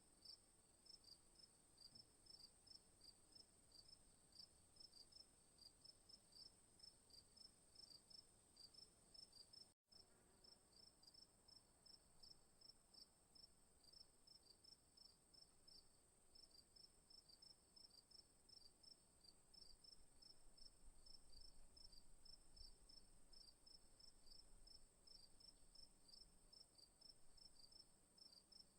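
Night insects: crickets chirping in regular pulses, about three chirps a second, over a continuous high-pitched insect trill. The sound cuts out for an instant about ten seconds in.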